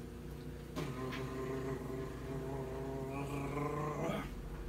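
A man humming one long low note, pitch nearly steady, starting about a second in and stopping shortly before the end.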